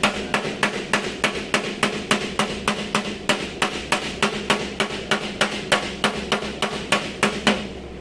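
Hammer blows on the car's body sheet metal in a steady, rapid series of about three to four strikes a second, panel-beating the damage, stopping shortly before the end.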